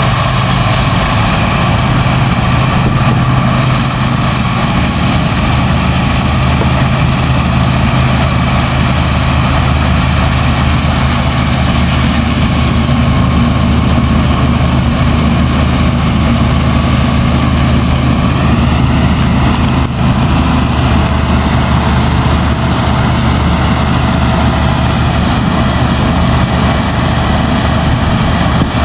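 New Holland TX66 combine harvester running steadily under harvesting load, its diesel engine's low drone mixed with the high whine of the threshing machinery. The whine rises a little in pitch about two-thirds of the way through.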